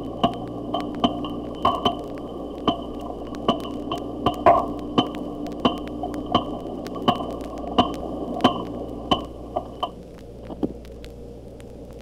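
Bottlenose dolphin echolocation clicks from an underwater recording, played back at one-eighth speed so that each click stands out as a sharp, explosive pulse. They come irregularly, about one or two a second, over a steady high tone and a low hum that fall away about ten seconds in.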